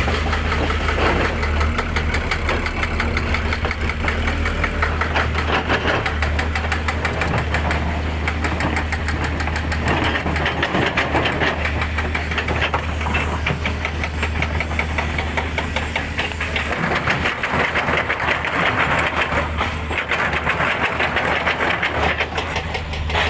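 Truck and excavator engines running steadily under load, with a fast, even pulse: a bogged-down Toyota Dyna truck straining while an excavator pushes it.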